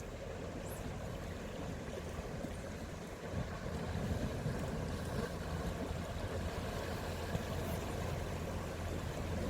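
Steady low outdoor rumble at the sea, growing slightly louder about three and a half seconds in.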